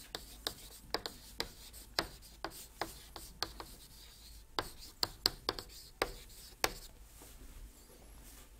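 Chalk writing on a chalkboard: a quick run of sharp, irregular taps and short scrapes as the letters are stroked, stopping about seven seconds in.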